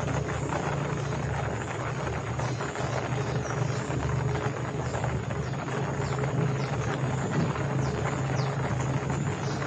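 Small boat outboard motor running steadily, with a constant low hum.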